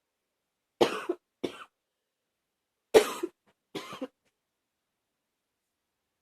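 A woman with a cold coughing: two pairs of short coughs, the second pair about two seconds after the first.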